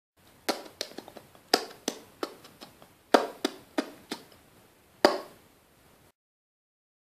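A run of sharp clicks made with the mouth, about fifteen, coming irregularly over some four and a half seconds; the loudest are near the start, about three seconds in, and a last one about five seconds in.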